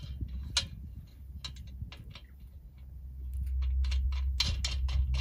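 Light metal clicks and taps of IGT connector hooks being fitted to a lightweight aluminium camp table and hooked onto a steel mesh fire pit table, coming faster about three seconds in, over a low rumble that gets louder in the second half.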